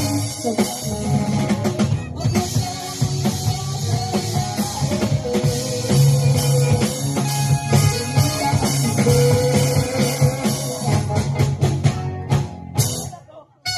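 Live band playing an upbeat pop-rock song with drum kit, bass and guitar, with held melodic notes over the beat; the music cuts out briefly near the end.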